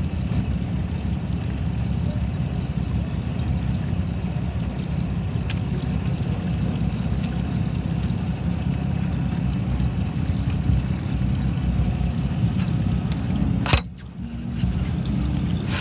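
Wind buffeting the camera microphone, a steady low rumble over choppy water. A sharp click comes about two seconds before the end, after which the rumble briefly drops away and then returns.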